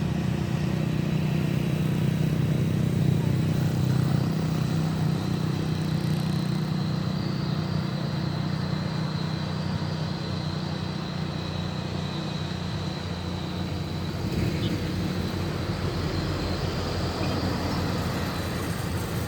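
Motor vehicle engine running steadily under load on an uphill climb, with road noise.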